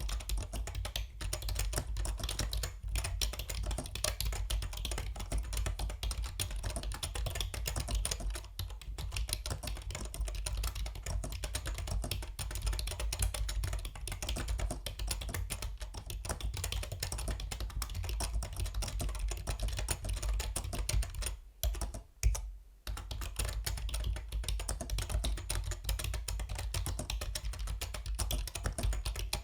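Continuous typing on a Yunzii B307 mechanical keyboard: a dense, steady stream of keystrokes. About 21 seconds in, the typing pauses briefly, broken by one louder key press.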